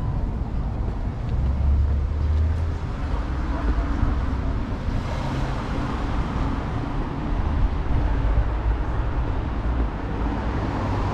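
City street ambience: traffic going by on the road alongside, with a steady low rumble.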